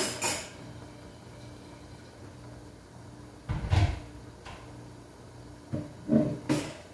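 Dishes and kitchenware being handled at a sink: a few separate knocks and clatters, the loudest a heavy clunk a little past halfway and a quick cluster near the end, over a steady low hum.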